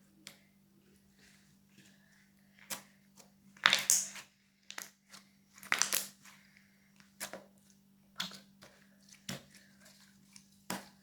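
Slime being stretched and squeezed by hand, giving a scattered series of short pops and crackles, the loudest about four seconds in. A faint steady low hum runs underneath.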